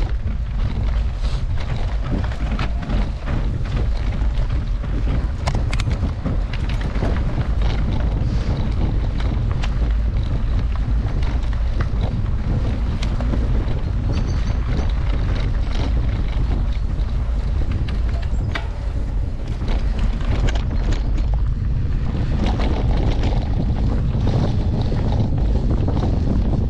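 Wind buffeting the microphone of a camera riding on a moving mountain bike, a steady deep rush, with many small clicks and rattles from the bike over rough trail.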